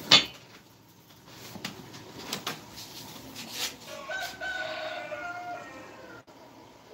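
A rooster crowing once, a held call starting about four seconds in and lasting about a second and a half. A sharp knock sounds at the very start, with a few light clicks after it.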